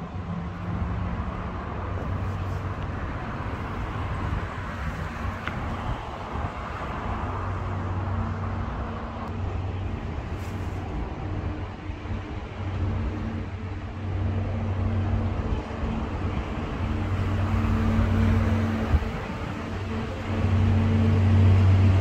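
An engine or motor running with a steady low hum that grows louder near the end, over constant outdoor background noise.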